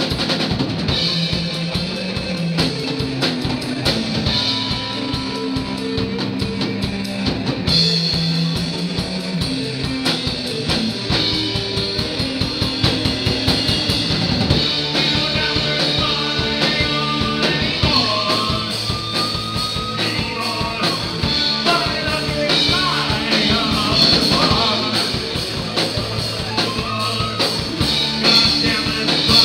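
Live rock band playing: two electric guitars, an electric bass and a drum kit, amplified and steady in loudness.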